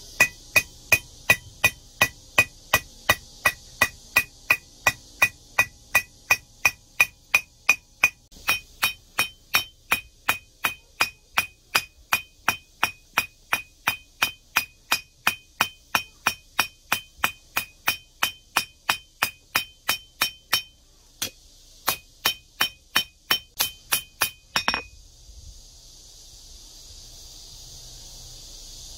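Hand hammer beating red-hot steel knife blade on an anvil, an even rhythm of about two and a half ringing blows a second. The blows pause briefly about 21 seconds in and stop about 25 seconds in, after which a steady hiss remains.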